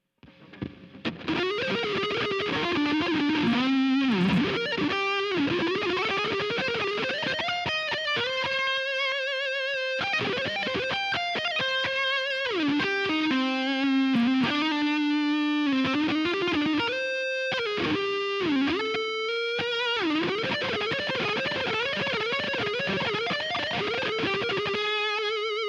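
Electric guitar played through the Vigilante distortion pedal, a take on the Providence SDT-1, boosted by a Woodrite Warlord and run into a Kemper profile of an Engl Invader: heavy distorted riffing with chugged passages and held notes with vibrato, starting about a second in.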